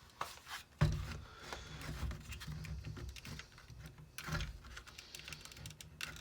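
Handling noise of a tool rubbing and scraping at a part inside an old drill, with small clicks; the part is stuck fast in old gunk.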